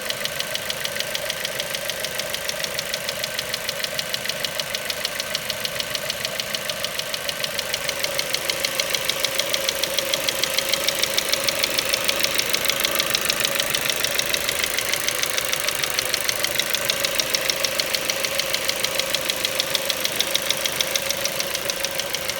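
Ford Mondeo Mk4's 2.0 Duratec HE four-cylinder petrol engine running steadily at idle with a rapid, regular knock. The owner has ruled out the valves and swirl flaps and suspects the petrol injectors.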